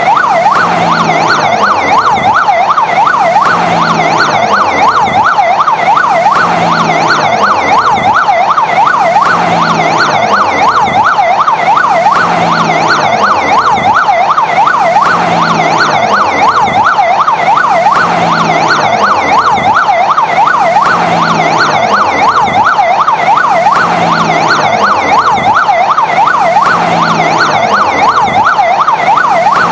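Fire engine siren in a fast yelp, its pitch sweeping rapidly up and down a few times a second, loud and unbroken.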